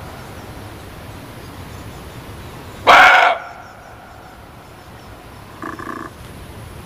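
Muntjac (barking deer) giving one loud, sharp bark about three seconds in, then a fainter call near the end.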